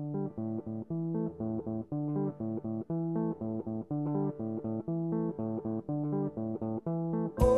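Background music: a plucked guitar riff of short, evenly spaced notes over bass. A louder, fuller passage comes in near the end.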